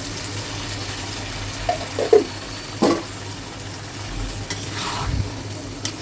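Chicken, tomato and ground bhedailota paste frying in a kadai with a steady sizzle. A spatula stirs and scrapes against the pan a few times, around two and three seconds in.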